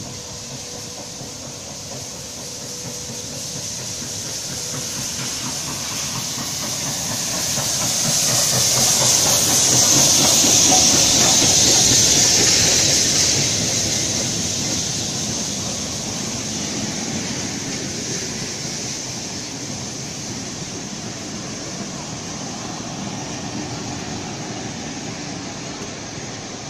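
Steam-hauled heritage train passing through the station: hiss from the locomotive builds to its loudest about ten seconds in, then the tank wagon and vintage carriages roll by with steady wheel noise.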